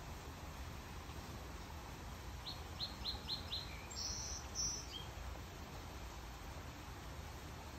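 A small songbird calling: a quick run of five short, high chirps about two and a half seconds in, then a few higher, slightly longer notes, over a steady low background rumble.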